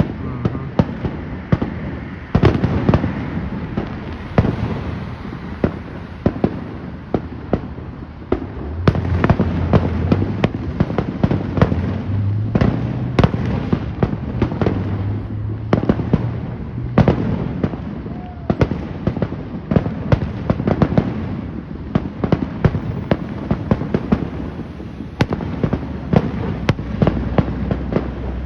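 Fireworks finale barrage: a rapid, continuous string of aerial shell bursts and crackling reports over a steady rumble. It grows denser and louder about a third of the way through.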